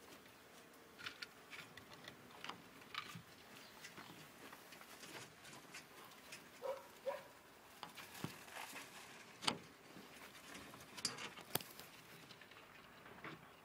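Ferrets chewing and tearing at a young rabbit carcass, with scattered soft crunches, clicks and rustles of wood-shaving bedding and a few sharper clicks in the second half.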